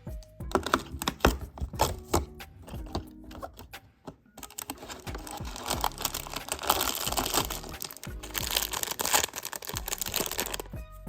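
Small plastic Lego pieces clicking and rattling for the first few seconds, then a small plastic bag of Lego parts crinkling for several seconds as it is handled and torn open, with background music underneath.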